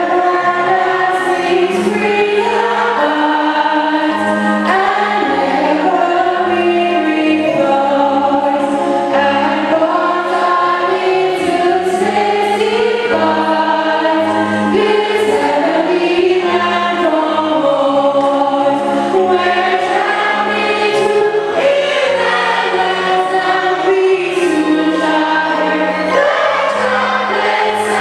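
Church congregation singing a hymn together in chorus, over low sustained notes that change in steps.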